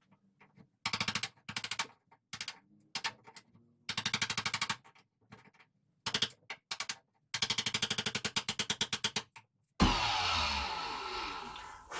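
Rapid runs of sharp taps from a chisel cutting out a lock mortise in a wooden door edge, in short bursts with abrupt silences between. Near the end a sudden loud rushing sound comes in and fades over about two seconds with falling tones.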